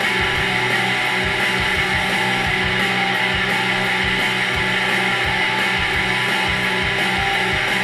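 Hard rock track with electric guitar over a steady drum beat, played back through a pair of Sharp CP-C411H mini-system bookshelf speakers and picked up by a microphone in the room.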